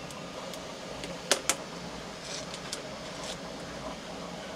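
Two sharp clicks a fraction of a second apart, about a second and a half in, then a few faint ticks: a stack of small disc magnets snapping together as it is handled. A steady fan hum runs underneath.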